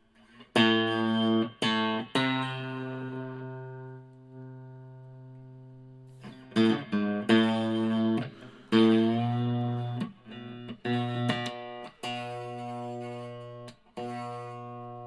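Les Paul electric guitar played through an amplifier, with chords strummed in short groups and left to ring out. The neck pickup is selected, as a test of the guitar's new wiring.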